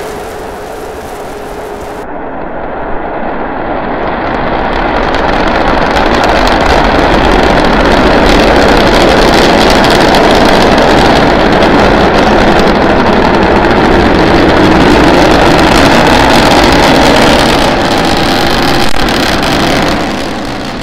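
Starship SN9 prototype's three Raptor rocket engines firing during liftoff and ascent: a loud, steady noise that grows louder over the first few seconds and falls off near the end.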